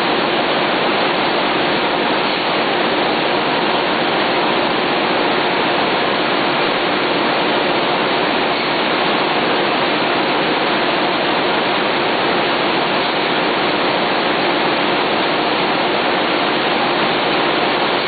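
Steady, loud roar of a running M1000B web offset printing press and its Butler roll stands, with paper web feeding through; an even rushing noise with no distinct knocks.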